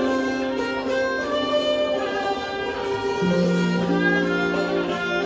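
Live Thai classical-style ensemble music: a slow melody of long held notes, some of them sliding in pitch, with a low held note coming in about three seconds in.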